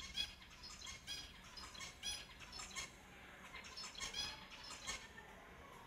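Finches calling: short, high calls repeated in bunches, several a second, with a lull about halfway through.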